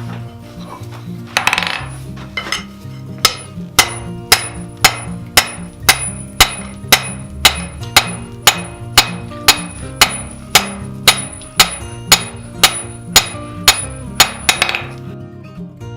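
Repeated hammer blows at a steady pace of about two a second, with a few looser strikes at first, over background acoustic guitar music.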